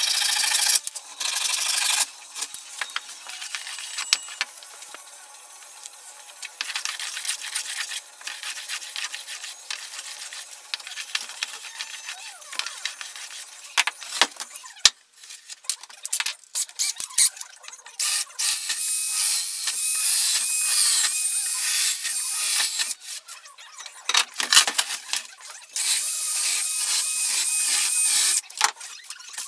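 A hand saw cutting through a thin wooden runner strip at the start, then quieter scraping and knocking of wood being handled, then a cordless drill running in two long bursts with a wavering whine as it bores into the runner.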